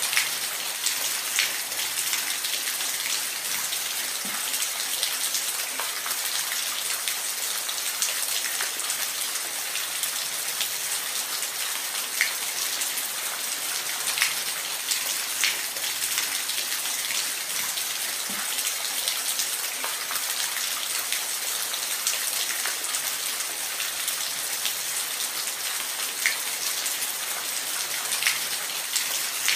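Steady hiss of falling water, with short sharper splashes or drips standing out every second or two.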